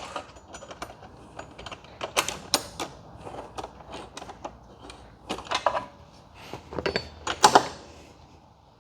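Irregular metal clicks and clinks of a hex key and wrench tightening bolts and lock nuts on a steel luggage-rack bracket, with a few louder knocks about two, five and a half and seven and a half seconds in.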